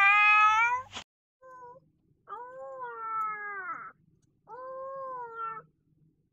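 Cat-like meowing: one loud meow cut off abruptly about a second in, then a short faint call and two longer meows, the first of those the longest.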